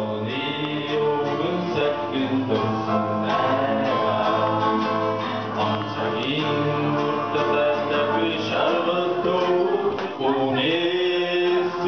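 Live singing accompanied by an acoustic guitar.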